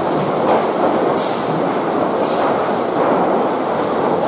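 Lumber stacking machinery and its chain transfer conveyors running, a steady loud clatter of chains, rollers and boards moving on steel. Two short hisses stand out, about a second in and again a second later.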